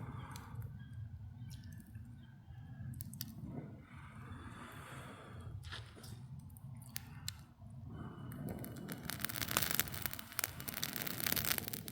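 Small stick fire being coaxed alight: scattered snaps and rustling, then denser crackling in the last few seconds as the fire catches.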